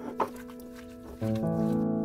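Background music of held keyboard chords, moving to a new chord a little past a second in, with a single sharp click just after the start.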